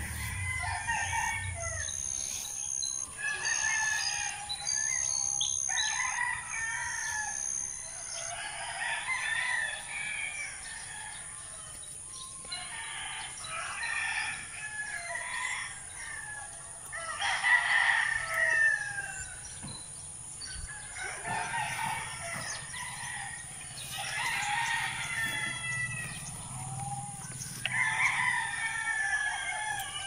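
Native chickens in a backyard flock clucking and crowing, one call after another, with the loudest call about seventeen seconds in.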